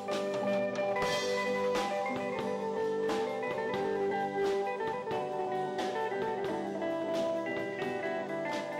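Live instrumental band: electric guitars playing a melody over a drum kit keeping a steady beat.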